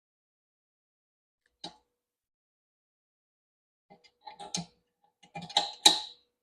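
Metal assembly parts clinking and clicking as the surface cleaner's handle pieces and pins are fitted: a single click, then two short bursts of clatter near the end, the last the loudest.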